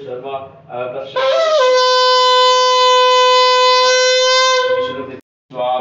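Conch shell (shankha) blown in one long, steady note lasting about three and a half seconds. The note starts about a second in with a brief upward slide and then fades out. Voices are heard before it, and the sound cuts out abruptly near the end.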